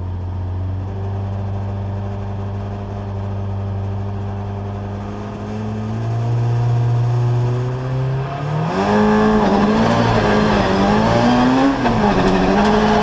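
Opel Corsa rally car's engine heard from inside the cabin: idling steadily, revs raised and held about six seconds in, then a hard launch about nine seconds in, the engine note growing louder with revs rising and falling.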